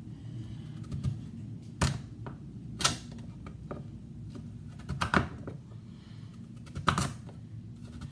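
Chef's knife cutting through hard kabocha squash and knocking down onto a wooden cutting board: several sharp knocks, one every second or two, two of them close together about five seconds in.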